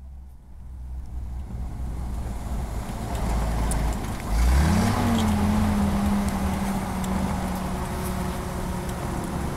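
1951 Chrysler M37CDN army truck's 251 flathead engine running on the move, heard from inside the cab with tyre and road noise underneath. About four seconds in, the engine rises quickly in pitch and then holds nearly steady.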